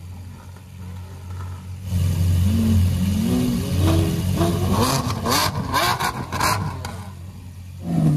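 Lamborghini Aventador V12 with an aftermarket exhaust idling, then revved in a run of quick blips from about two seconds in. It settles back toward idle, then is revved sharply again near the end.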